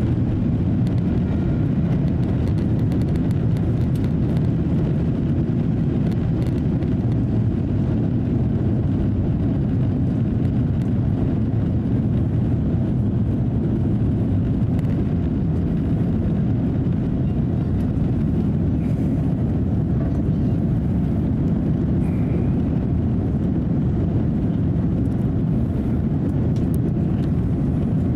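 Cabin noise of an Airbus A350-900 at takeoff thrust, heard from a window seat: the steady, deep noise of its Rolls-Royce Trent XWB engines and the airflow as the jet lifts off and climbs.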